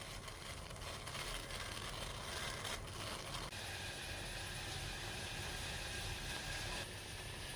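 Pot of water simmering on a low gas flame: a steady hiss that shifts in tone about three and a half seconds in and again near the end.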